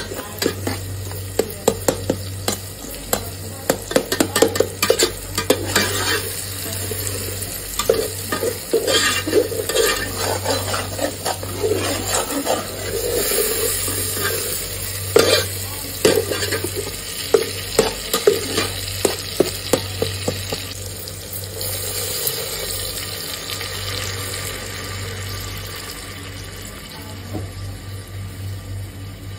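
A metal spoon stirs and scrapes a sizzling onion-tomato masala in an aluminium pot, clinking against the pot's sides many times. The clinking stops about three quarters of the way through, leaving a steadier sizzle.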